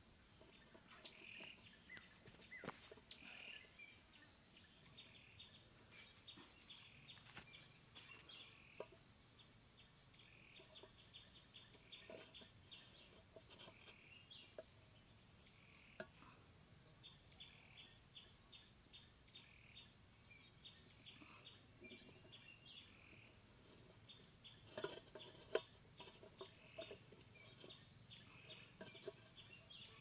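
Faint background of small birds chirping on and off, with scattered light taps and clicks from hands working the aluminium pot trap and its string; a few louder taps come about 25 seconds in.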